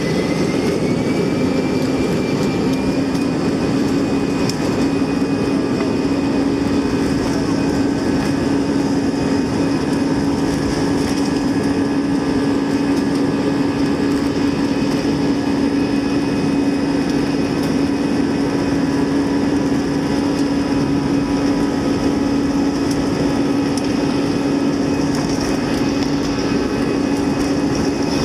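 Airbus A320 jet engines running at high, steady power over a constant rumble, with a hum and a higher whine that rise slightly in pitch in the first couple of seconds and then hold steady.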